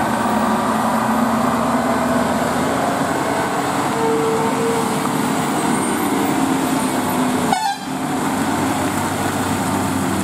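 Loaded Tata multi-axle tipper lorry's diesel engine labouring as it climbs a steep hairpin bend and passes close by, with a short horn toot about four seconds in.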